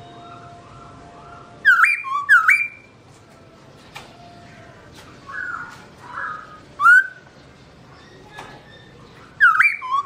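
Black-throated laughingthrush (Garrulax chinensis) singing: loud, clear whistles that sweep up and then hold. They come as a pair about two seconds in, a single one near seven seconds and another pair at the end, with softer fluting notes in between.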